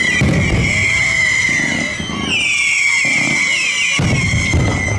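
Fireworks display going off: repeated deep booms and rumbles, with a steady high whistling tone above them.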